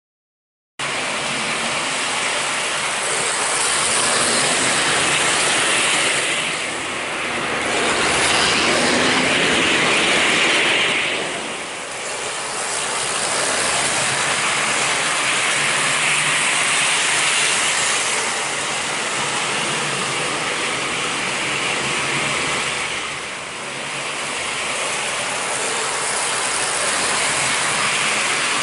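American Flyer S-gauge model passenger train running on its track: a steady mechanical rattle of wheels and motor that starts abruptly about a second in and dips briefly three times.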